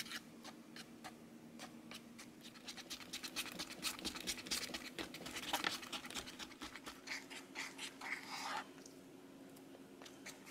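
Small plastic spoon stirring a wet candy-powder mix in a clear plastic tray: quick, irregular scraping and clicking of plastic on plastic as the powder is worked into a foamy slime.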